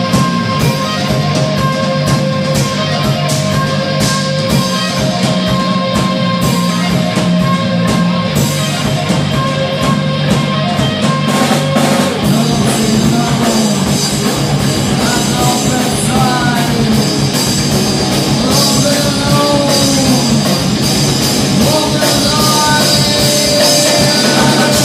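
Rock band playing live: electric guitars, bass and drum kit at full volume, with drum hits throughout and held, bending notes over the top.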